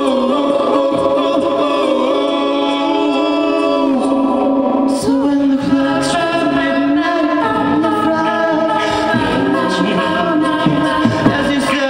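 A cappella group of mixed male and female voices singing sustained chords through microphones, with a few sharp percussive clicks near the end.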